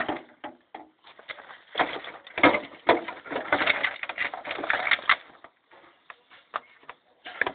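Clattering and crackling of dismantled TV parts being handled, in a dense run of quick knocks from about two seconds in to about five seconds in.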